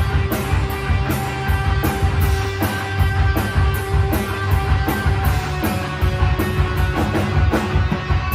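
Live rock band playing an instrumental passage: distorted electric guitar holding notes over bass guitar and a drum kit, with cymbal and drum hits about three a second.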